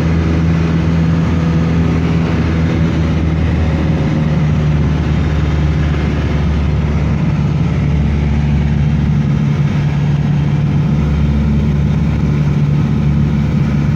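Steady engine drone and rushing air noise inside an airliner cabin, with a constant low hum under it.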